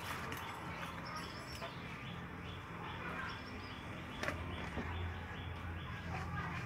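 Small birds chirping repeatedly, several short high chirps a second, over a steady low hum, with a couple of sharp clicks.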